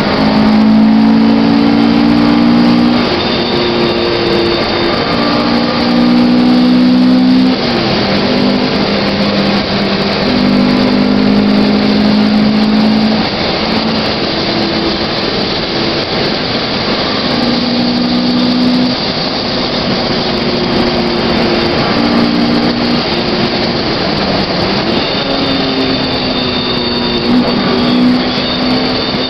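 Honda Civic's engine heard from inside the cabin while it is driven hard on track: a loud engine note that holds a steady pitch for a few seconds at a time, then shifts or breaks, over a continuous rush of road and wind noise.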